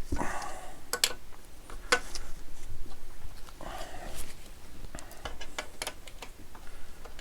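Irregular metallic clinks and knocks, with a couple of brief scrapes, from tools and parts being handled while the engine is fitted onto the tractor.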